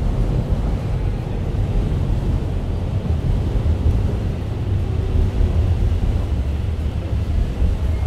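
Street ambience dominated by a low, fluctuating rumble, with no distinct events standing out.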